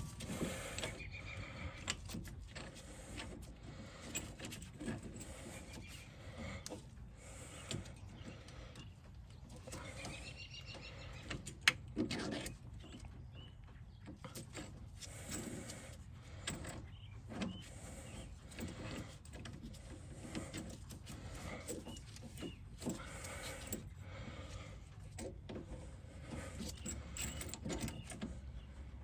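Scattered light clicks, clinks and knocks of hand tools and metal brake parts being handled during rear brake pad work, with a short squeak about ten seconds in and one sharp click shortly after.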